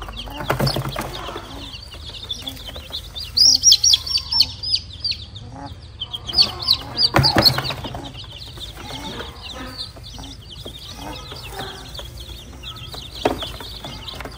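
Newly hatched chicks peeping: many short, high cheeps, thickest in two loud bursts a few seconds in and around halfway. A hen clucks low underneath, with rustling of the chicks being handled in straw and a sharp knock near the end.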